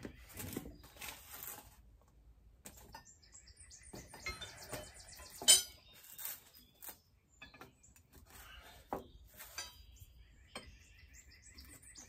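Steel hand wrenches clinking and clanking as they are picked up and set against the fitting of a new oil line being tightened, with one loud metallic clank about halfway through. Birds chirp in the background.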